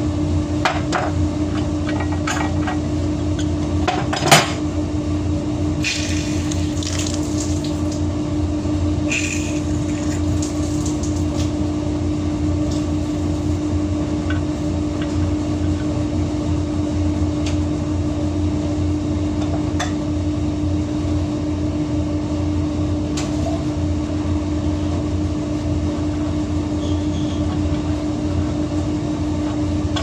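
Metal pipe fittings and valves being handled and worked on, giving scattered metallic clinks and knocks, with one sharp knock about four seconds in and short scraping noises around six and nine seconds in. A steady machine hum runs underneath.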